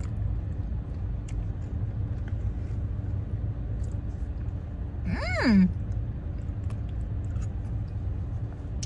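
Steady low rumble of a car idling with its air conditioning running, with faint scattered clicks. About five seconds in, a short voiced hum rises and falls.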